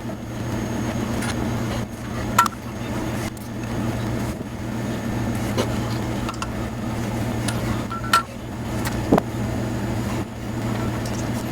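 Small metal parts and hand tools clicking and clinking during cylinder-head valve reassembly: a few sharp clicks, two with a brief ringing. A steady low hum runs underneath.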